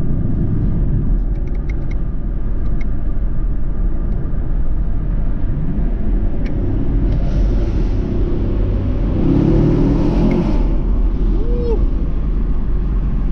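Inside the cabin of a 2020 Camaro SS cruising: steady road and engine rumble from its 6.2-litre V8, with a rush of noise for a few seconds past the middle.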